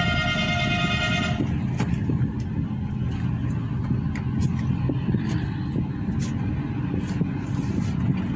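A vehicle horn sounding steadily, cutting off about a second and a half in, over the steady engine and road noise of a car driving; the road noise continues.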